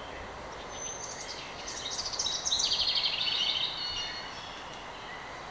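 A songbird sings one song of quick chirps and rapid high trills, lasting about three seconds and starting about a second in, over a steady outdoor background hiss.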